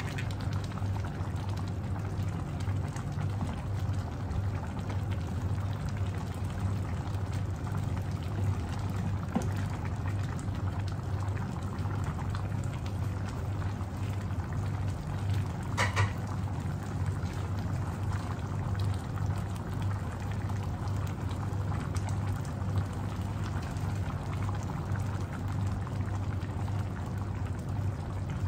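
Crabs and prawns in coconut-cream sauce simmering in a pan on a gas stove, bubbling steadily. There is one sharp knock about halfway through.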